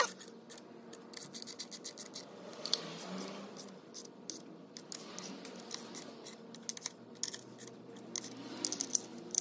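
Hand ratchet clicking in runs of quick clicks as the bolts holding an intake plenum spacer are tightened down.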